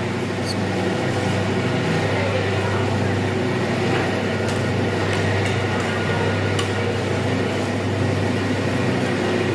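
A steady low hum under an even hiss, with a few faint clicks.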